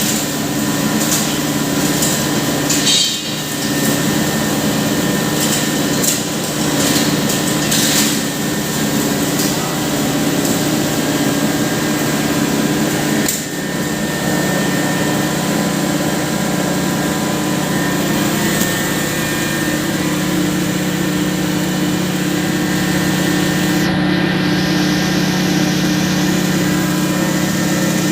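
Impact pulverizer (hammer mill) grinding machine running with a steady loud hum, with a few sharp knocks and clatters in the first half.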